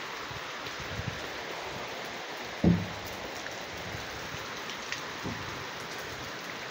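Steady hiss of rain, with one heavy thump about two and a half seconds in and a few fainter knocks.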